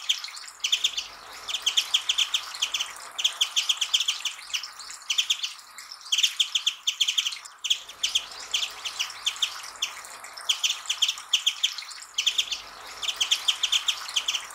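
Japanese white-eye singing: quick twittering phrases of rapid high notes, one after another with short gaps between them.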